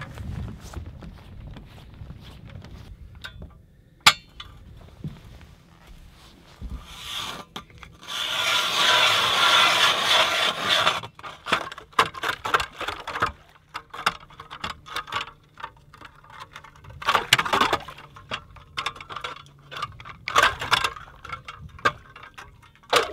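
Hand-cranked ice auger's steel blades scraping and grinding through thin lake ice, about two inches thick. There is a long loud grinding stretch about eight seconds in, then shorter, irregular scrapes as the crank is turned.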